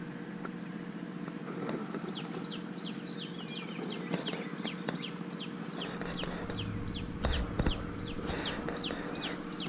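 A bird calling in a long, fast series of down-slurred whistled notes, about three a second, starting about two seconds in, over a steady low hum.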